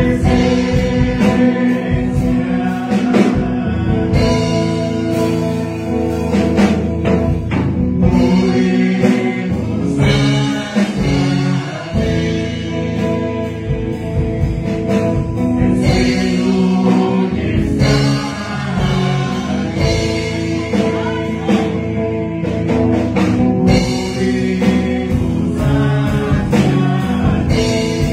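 A man singing a Spanish-language worship song through a microphone over instrumental accompaniment.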